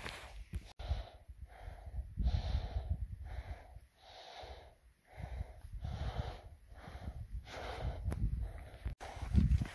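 A man's heavy, quick breathing in and out through an elevation training mask while running uphill, in a steady rhythm of hissy, wheezy breaths, with a low rumble beneath.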